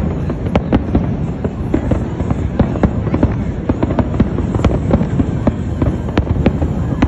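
Fireworks display: aerial shells bursting in rapid succession, a continuous rumble of booms with many sharp cracks layered over it.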